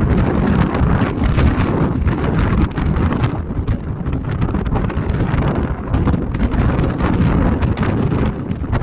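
Strong gusty storm wind buffeting the microphone, a loud rumbling noise that surges and dips with the gusts and drowns out the sea surf.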